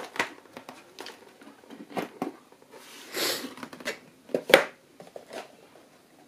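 Cardboard packaging and a small plastic RC crawler being handled as the truck is pulled from its box insert: scattered clicks, scrapes and rustles, a short rushing noise about three seconds in and a sharp knock about four and a half seconds in.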